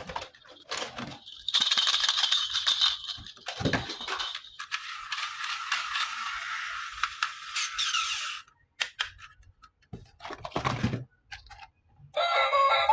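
Small plastic toy pieces and packaging being handled: a few clicks and rattles, then a long rustling of plastic wrap lasting several seconds, with a knock in the middle.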